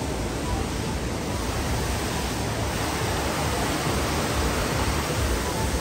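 Mountain stream cascading over rocks, a steady rushing.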